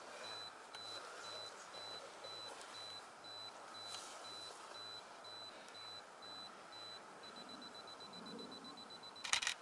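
Camera self-timer beeping, about three short high beeps a second, speeding up to rapid beeps near the end as it counts down, then the shutter firing a quick burst of clicks.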